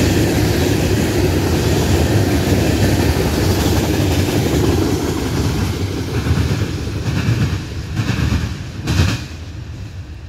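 Freight train of CSX hopper cars rolling past on the rails: a steady rumble of wheels and cars that fades as the end of the train goes by and pulls away. There are a few short louder bursts about two-thirds of the way in before the sound drops off near the end.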